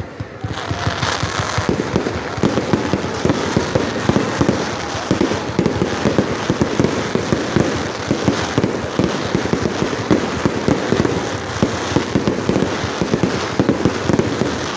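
Fireworks display: after a brief lull at the start, a dense, rapid barrage of bangs and crackles with no gaps.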